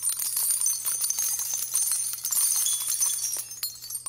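Jingling bells: a dense, high shimmer of many small metallic jingles that fades out near the end.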